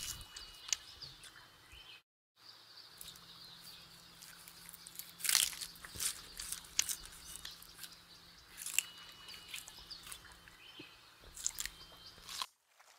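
Crunching and chewing of bamboo, the sound effect of Google's AR 3D giant panda model as it eats, heard as scattered crisp crunches at a low level, the strongest around the middle.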